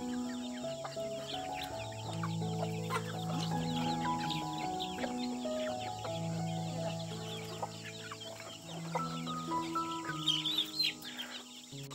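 Chickens clucking over background music of long held notes that step from chord to chord, with a louder, higher call about ten seconds in.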